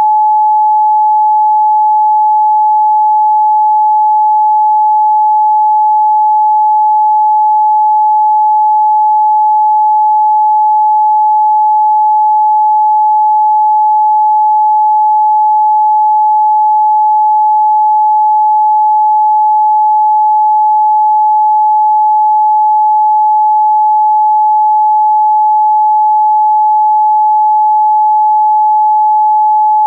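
Pure 855 Hz sine test tone, one steady unbroken pitch held at a constant loud level.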